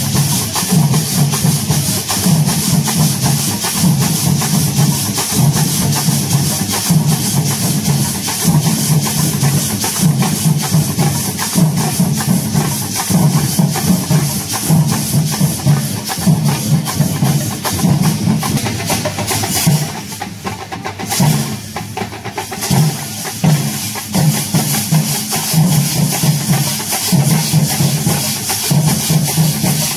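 Kerala festival percussion ensemble: drums beaten with sticks and metal hand cymbals clashing together in a steady, driving rhythm. The playing briefly eases about twenty seconds in.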